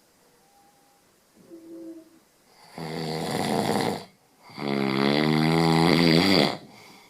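Snoring: two loud snores, a shorter one about three seconds in and a longer, louder one with a wavering pitch after it.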